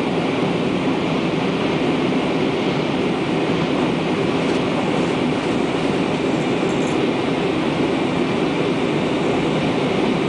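Steady cabin noise of a jet airliner climbing after take-off: an even roar of the engines and rushing air, heard from inside the cabin.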